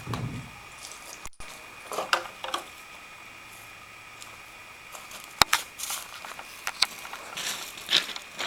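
Irregular crunches and clicks, with one sharp click about five and a half seconds in, over a faint steady high-pitched tone.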